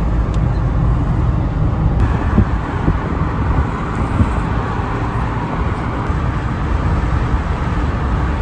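Steady low rumble of road traffic and vehicle noise.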